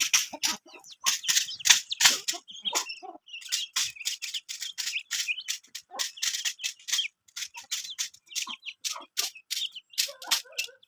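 Chickens at their feed: a dense, irregular run of sharp clicks, several a second, with short chirps and clucks mixed in.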